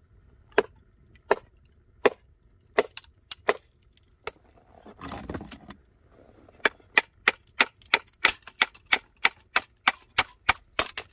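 Wooden baton knocking on the back of a hatchet set into a piece of very dry firewood, splitting a thin plank off it. Five knocks spaced under a second apart, a brief scuffle, then a quicker run of strikes, about four a second, near the end.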